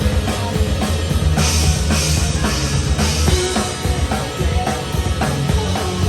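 Live rock band playing, with a steady drum-kit beat to the fore and a brighter high wash from about a second and a half to three seconds in.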